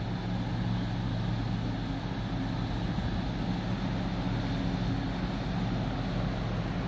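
Low, steady drone of a 165 m chemical tanker's engine as the ship passes close by, over an even hiss of water from its bow wave and wind.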